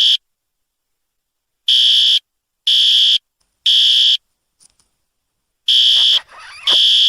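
Building fire alarm horn sounding in the temporal-three evacuation pattern: three half-second buzzing blasts about a second apart, a pause of about two seconds, then the next set of blasts begins.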